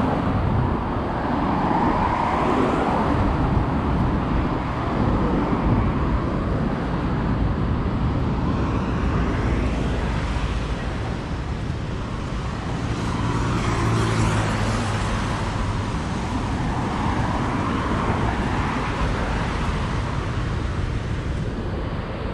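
Road traffic on a seafront avenue: a steady rumble of cars driving past, with one vehicle's engine hum swelling and fading as it passes close about thirteen seconds in.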